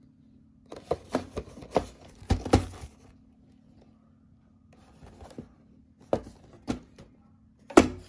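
Cardboard model-kit box being handled and turned in the hands: a quick run of taps, knocks and scraping about a second in, a few more knocks later, and the loudest knock near the end.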